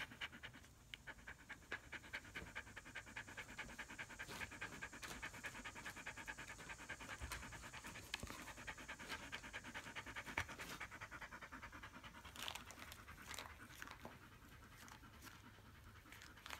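Black Labrador panting rapidly and steadily close to the microphone, easing off in the last few seconds.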